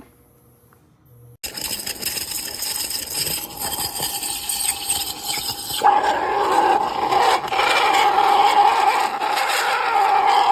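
Espresso machine steam wand hissing. It starts abruptly about a second and a half in, and a steady high squeal joins it a few seconds later as it grows louder.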